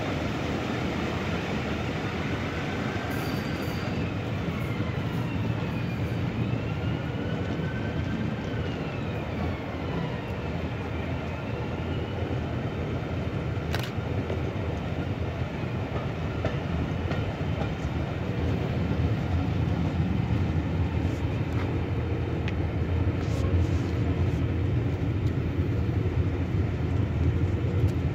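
Locomotive-hauled charter train running at speed, its coaches' wheels rumbling on the rails, heard through an open carriage window. Faint rising and falling whines come and go in the first half, and the running noise grows louder over the second half.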